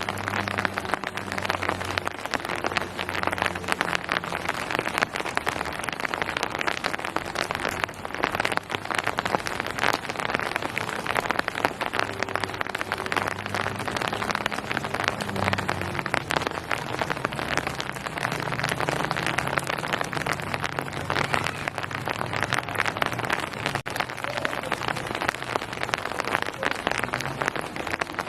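Steady rain falling on surfaces, a dense patter of many drops, with a faint low hum underneath that fades in and out.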